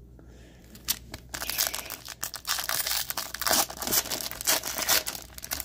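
Upper Deck AEW trading card foil pack being torn open, its wrapper crinkling and crackling. After about a second of quiet there are a few sharp clicks, then steady crinkling for about four seconds.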